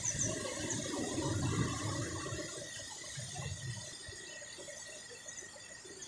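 Steady rushing noise of a waterfall, easing off slightly towards the end, with a few faint high chirps near the start.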